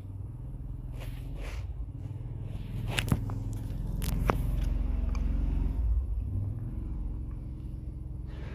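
Low engine hum of a passing vehicle, swelling for a few seconds and then fading, with two sharp clicks about a second apart near the middle.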